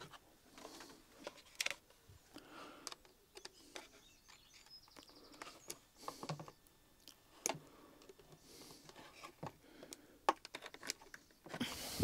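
Faint, irregular clicks and taps of small pliers and fingers working wire connectors onto the rocker switch inside a Numatic Henry vacuum cleaner's plastic motor housing.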